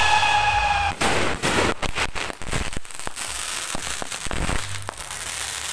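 Fireworks going off: a whistling tone falls slightly and fades out about a second in, then rapid crackling pops and bangs follow and thin out toward the end.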